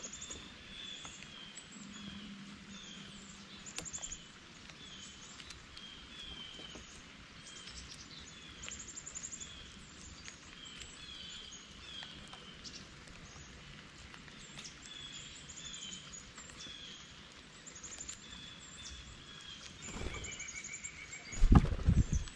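Small songbirds calling over and over with short, high slurred notes, over a steady hiss of light rain. Near the end a blue jay flies in and lands at the feeder with a burst of wing flaps and thumps, the loudest sound.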